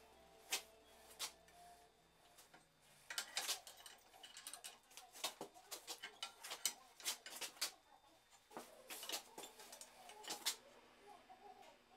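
Light, irregular metallic clinks and taps of a hot iron rod knocking against a bending fork held in a steel bench vise as the rod is bent by hand. A few scattered clicks at first, then a dense run of them through the middle that thins out near the end.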